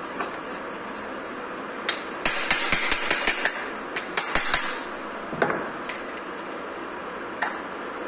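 Small hammer tapping on the plastic body of a fused LED bulb to loosen its white diffuser dome: a quick run of light taps about two seconds in, another short run near the middle, then a few single taps.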